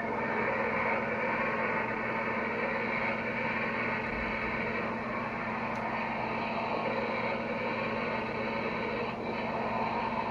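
Steady steam hiss of a boiler blowdown with a low hum underneath, played by the QSI QS-3000 sound system through the small speaker of an O scale Reading G3 model steam locomotive.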